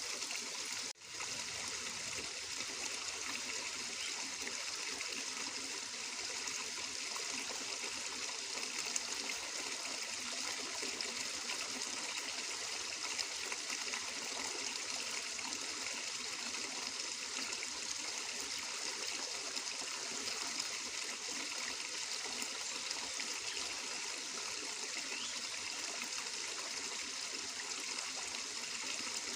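Water flowing steadily, a continuous trickling rush, with a momentary drop-out about a second in.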